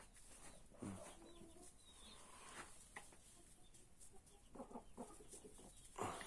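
Dominant laying hens clucking quietly, with a few short calls, the clearest about a second in and near the end.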